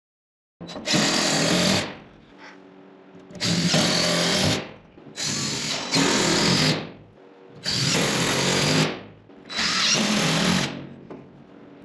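DeWalt cordless drill driving screws into wooden braces and purlins: five short runs of the drill, each lasting about a second, with brief pauses between screws.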